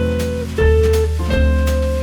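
Background music: a jazzy instrumental with bass, guitar and drums.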